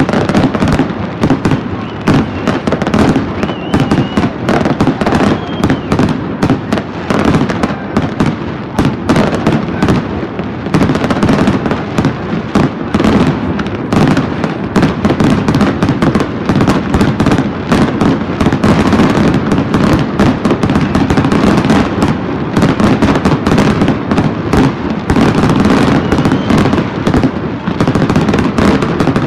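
Aerial fireworks display in a dense barrage: shells bursting in rapid, overlapping bangs and crackles that never let up.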